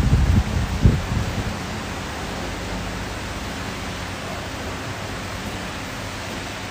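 A few low thumps in the first second and a half as the grapplers go down onto the mat, then a steady even hiss with a faint low hum.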